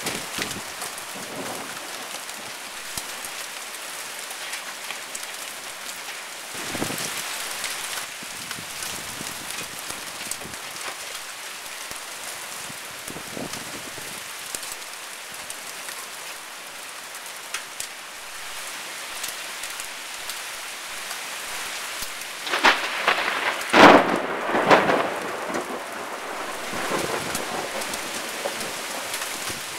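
Heavy thunderstorm rain falling steadily. A brief swell of thunder comes about a quarter of the way through, and a louder burst of thunder with several peaks comes about three-quarters of the way through.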